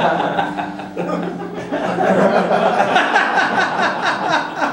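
A roomful of people laughing, with some talk mixed in.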